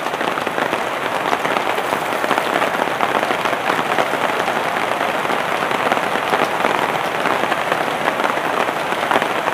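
Steady rain with a dense fine patter, over the constant rush of a muddy river running high and fast, swollen by rain upstream.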